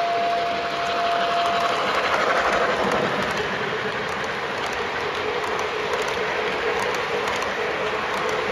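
O gauge model steam trains running on three-rail track, their wheels rolling steadily under the locomotive's electronic steam sound. A steam whistle holds one steady note at the start and stops about a second and a half in.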